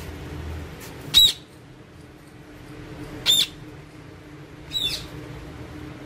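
Alexandrine parakeets giving three short, high calls about two seconds apart, the last a little weaker.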